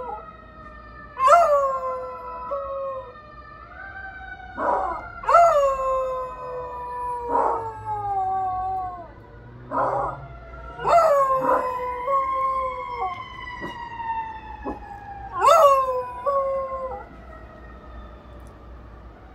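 Beagle howling about six times in short calls that rise sharply and fall away, joining in with the wail of fire truck sirens. The sirens slide slowly down in pitch and fade out near the end.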